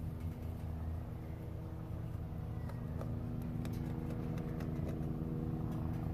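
Steady low machine hum, with a few light metal clicks about three and a half to five seconds in as bucket-type valve followers are pressed into their bores in a Toyota 4.7 V8 cylinder head.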